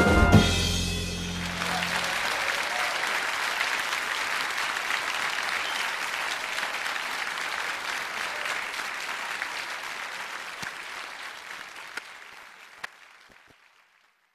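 A song ends with a final chord about a second in, followed by audience applause that fades out slowly over about ten seconds. A few faint clicks sound near the end.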